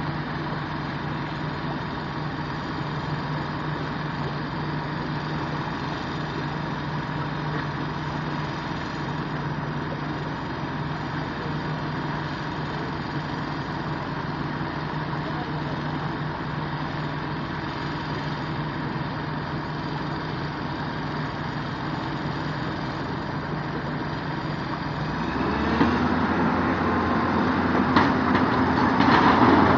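Mitsubishi Fuso dump truck's diesel engine running steadily at idle, then revving up about 25 seconds in as the hydraulic hoist starts raising the tipper bed to dump its load of stones.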